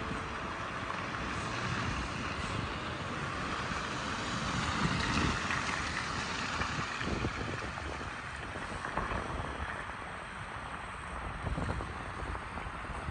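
Snowy city street ambience: steady wind rumbling on the microphone under the hiss of traffic on slushy roads, swelling about five seconds in.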